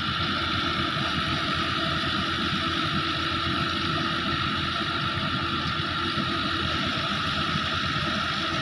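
Fiat 640 tractor's diesel engine running steadily under load as it drives a threshing machine, mixed with the thresher's steady whirring drone.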